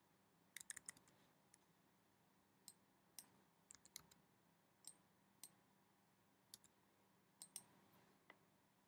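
Faint, scattered clicks of a computer mouse and keyboard keys, some coming in quick clusters of two to four.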